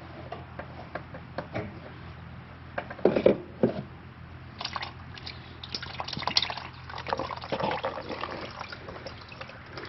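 Engine oil dripping and splashing into a drain pan from the generator's removed oil filter, in irregular drips with a few louder splashes and handling knocks, the loudest about three seconds in.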